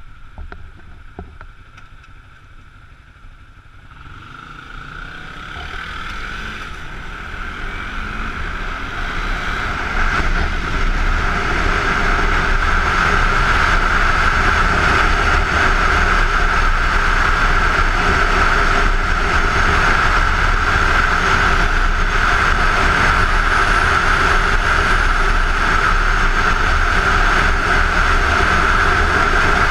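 Ride noise from a Kawasaki Ninja 250 pulling away from a stop and gaining speed: mostly wind rushing over the helmet-mounted camera, growing over the first ten seconds or so and then holding as a steady loud rush.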